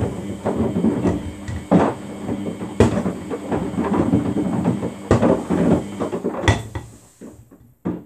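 Samsung front-loading washing machine drum tumbling its load in water, with the loose plastic detergent drawer knocking against the drum several times. The tumbling dies away about seven seconds in, followed by one last knock.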